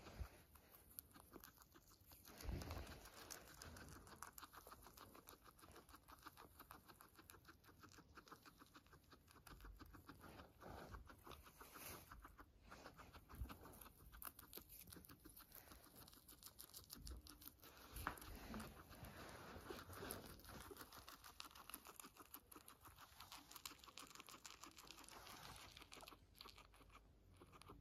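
Silkie guinea pig chewing dandelion leaves close to the microphone: a faint, rapid, continuous run of small crunching clicks. A couple of soft thumps stand out, about two and a half seconds in and again past the middle.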